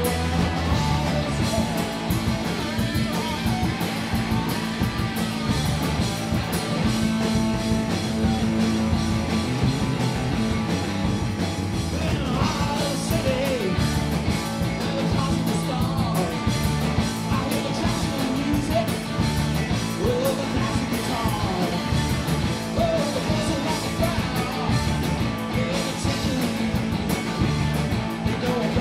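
Rock band playing live: electric guitar, bass and drums at a steady loud level, with a voice singing over them.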